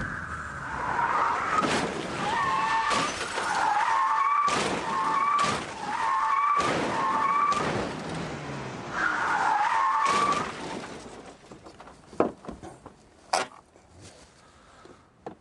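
Austin Montego's tyres squealing in a series of long, wavering squeals as the car is slid through a handbrake-turn parking attempt. The squealing stops about ten seconds in, followed by a few sharp knocks.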